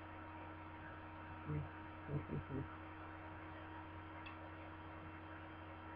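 Steady electrical mains hum, with a few short low murmurs about one and a half and two and a half seconds in.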